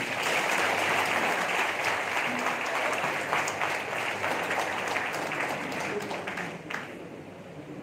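Audience applauding, starting suddenly and thinning out and fading over about seven seconds.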